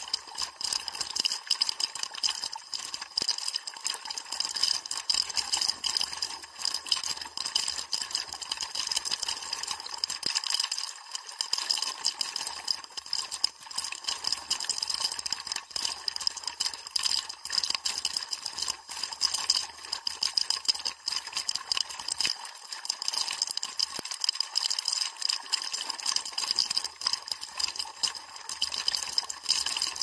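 A small waterfall in a mountain stream pouring straight onto the camera, heard up close as steady, dense splashing and crackling, mostly high-pitched with little low rumble.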